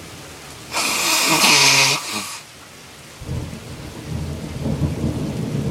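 Thunder rolling in with a low rumble from about three seconds in, over steady rain, after a loud short burst of sound about a second in.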